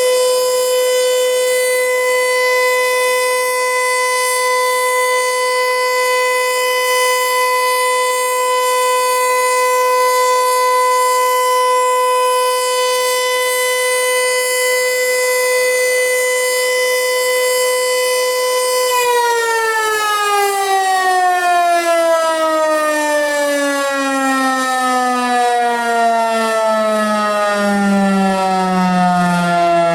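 Federal Signal Eclipse 8 outdoor warning siren sounding one steady, high tone, which about two-thirds of the way in begins a long, smooth fall in pitch as the siren winds down.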